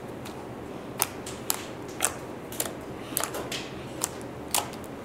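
Fingers poking into pink slime, making sharp popping clicks about twice a second that start about a second in.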